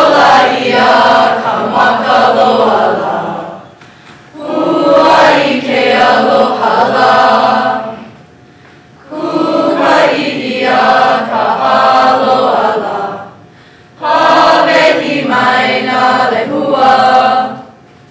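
A group of voices singing together, unaccompanied and chant-like, in four long phrases with short breaks between them.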